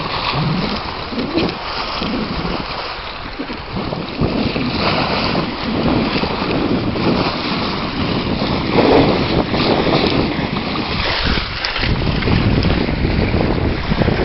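Wind buffeting the microphone over the rush of water along the hull of a sailing yacht under way, rising and falling in gusts.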